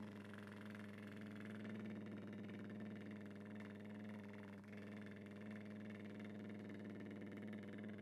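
A man's lip trill: a steady stream of breath blown through loose, closed lips makes them buzz continuously, hummed at one low steady pitch, with a brief falter about halfway. It is a facial vibration exercise for loosening the muscles around the lips and face.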